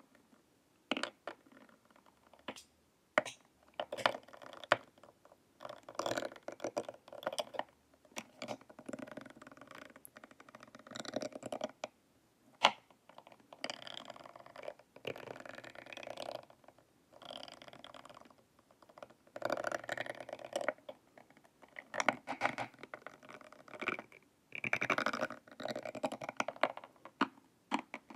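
Ridged metal rods rubbed and tapped against the eye-hole edges of a hard plastic face mask. The sound comes in bursts of rapid fine scratching and clicking, a second or two long with short pauses between, plus a few single sharp clicks.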